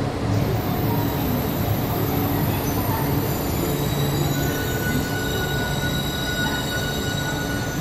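E4 series double-decker Max Toki Shinkansen rolling slowly into the platform and squealing as it brakes, over the rumble of the passing cars. Several high, thin, steady tones set in about half a second in, and a lower whistling tone joins them about four seconds in.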